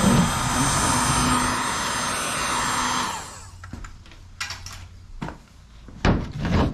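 Electric heat gun blowing with a steady fan rush, warming the blower's plastic swivel tube so it will turn on. It is switched off about three seconds in and fades out, followed by a few sharp clicks and knocks.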